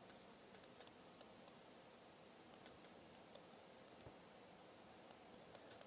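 A dozen or so faint, sharp clicks of a computer mouse button, irregularly spaced, as handwritten strokes are drawn one after another.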